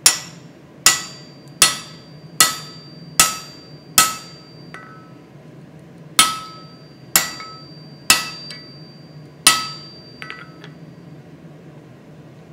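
Hand hammer striking a steel drift set in the eye of a red-hot EN9 steel hammer head on the anvil, opening the eye. There are about ten ringing metal-on-metal blows: six in a steady run of just under one a second, then a pause of about two seconds and four more, with a few light taps between. Each blow rings on with a clear high tone.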